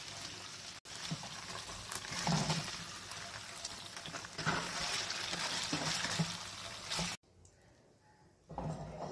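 Paneer cubes sizzling in hot oil in a frying pan while a spatula scrapes and stirs them, with a few short knocks of the spatula against the pan. The sizzling cuts off abruptly about seven seconds in.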